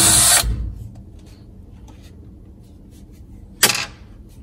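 Cordless drill spinning at speed in the slide rail's screw slot, cutting off abruptly about half a second in. Near the end a single sharp metallic clatter with a short ring, a screw dropping onto the metal slide.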